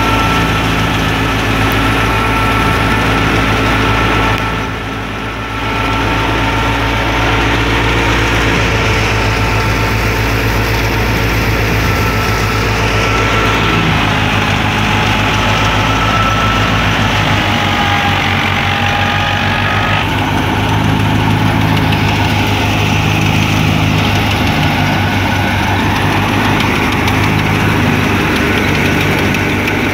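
Wheat thresher driven by a Ghazi 65 hp tractor running under load: a steady, loud engine drone mixed with the thresher's drum and blower, with a steady whine over it. The level dips briefly about five seconds in.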